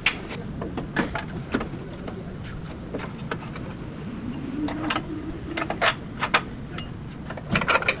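Irregular sharp clicks and knocks over a steady low hum, with a quick cluster of them near the end.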